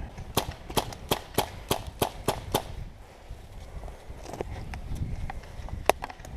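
Airsoft guns firing: a quick run of about eight sharp shots, three to four a second, over the first two and a half seconds, then two more single shots later on.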